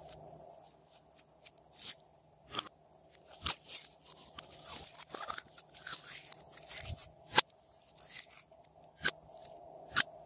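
Glossy slime being stretched, squeezed and pressed by hand, making irregular sticky clicks and pops as it is worked and pushed into a plastic cup.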